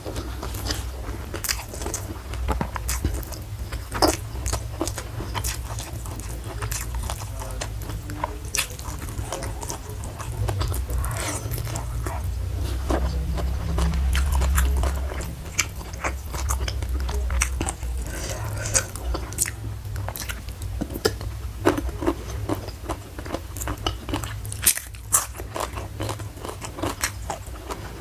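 Close-miked chewing and biting of food, with irregular crunches and wet mouth clicks.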